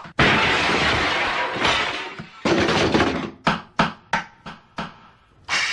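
Things being smashed and wrecked in a room: a long, loud crash of breaking objects, a second crash, then about five separate hard bangs, roughly three a second.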